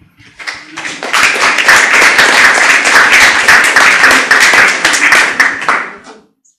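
Audience applauding: many people clapping together, building quickly about half a second in, dense and steady, then dying away near the end.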